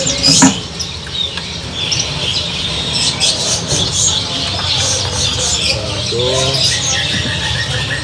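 Many caged songbirds chirping and calling at once, short high calls overlapping throughout, over a steady low rumble. There is one sharp knock about half a second in.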